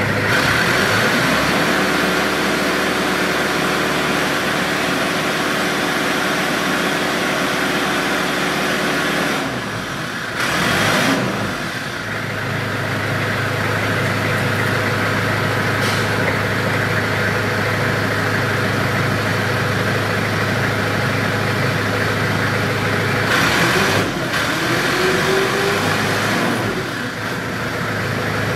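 Doosan D30GP forklift running, its engine note rising and changing twice, about ten seconds in and again near the end, as the hydraulic mast is raised and lowered.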